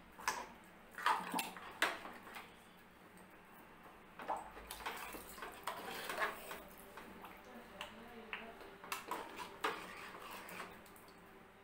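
Metal spoon stirring thin dal and vegetables in an aluminium pressure cooker, with irregular clinks and scrapes against the pot and a little sloshing of liquid.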